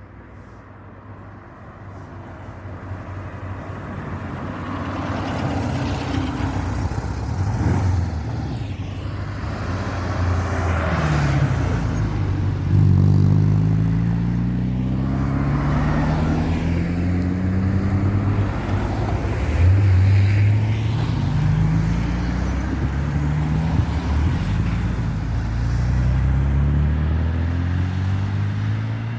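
Rally cars passing one after another on a road, with tyre noise swelling and fading as each goes by. From about the middle on, engines accelerate hard with repeated rising revs, as they change up through the gears.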